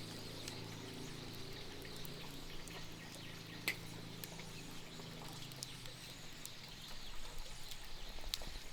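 Quiet outdoor ambience with faint bird chirps and a scattering of sharp clicks, one standing out a little before the middle.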